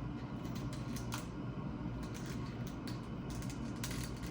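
Faint scattered clicks of a plastic action figure being handled and posed, over a steady low room hum.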